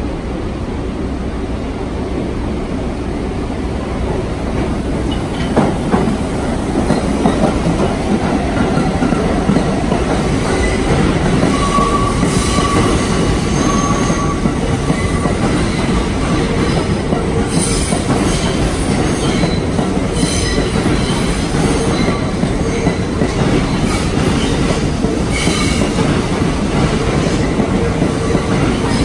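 New York City subway train rolling slowly past, with rumbling wheels, clacking over rail joints and short high-pitched wheel squeals, loudest in the second half.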